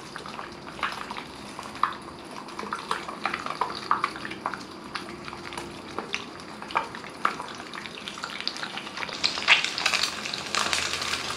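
An egg frying in oil in a small non-stick pan, a steady sizzle with many small crackling pops that grow louder and busier near the end.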